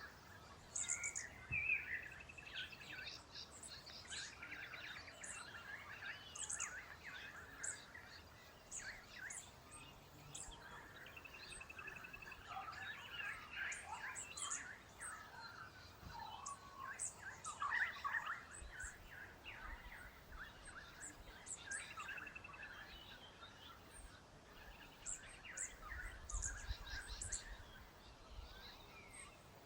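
Small birds chirping and trilling, many short calls overlapping, with quick high-pitched chirps.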